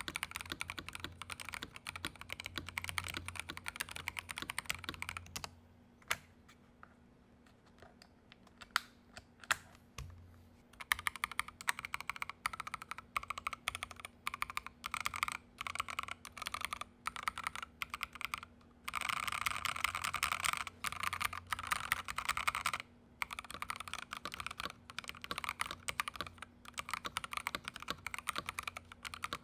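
Typing on a Feker IK75 gasket-mounted keyboard with a steel plate and lubed MMD Cream linear switches: fast runs of keystrokes, then a pause of several seconds with only a few single key presses, then steady typing again, densest for a few seconds past the middle.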